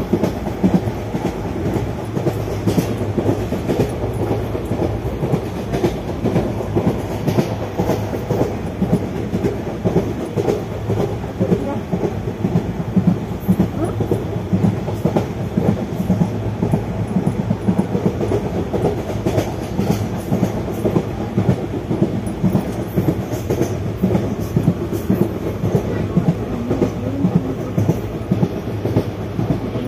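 ICF passenger coach running along the track: a steady rumble of wheels on rail with frequent clattering knocks.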